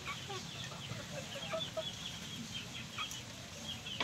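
Domestic chickens calling: many short, high chirps with a few lower clucks, and a sharp click at the very end.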